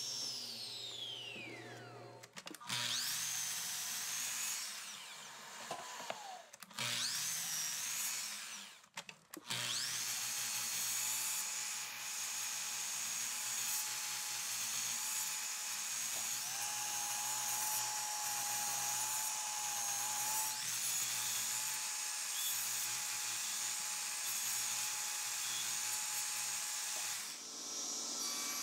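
Table saw blade running and crosscutting a block of sapele in repeated passes to waste out a notch. The whine falls as the blade winds down at the start, rises again as the saw starts up, then holds steady through a long stretch of cutting.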